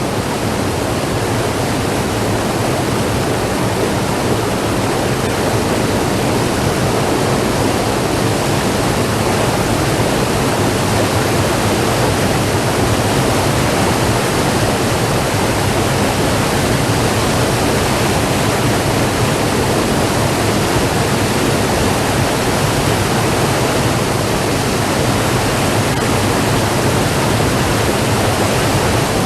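Rushing white water, a steady loud roar with no break or change.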